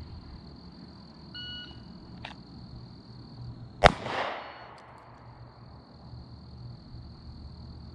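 A single pistol shot from a Glock 27 in .40 S&W, about halfway in, its report trailing off over about a second.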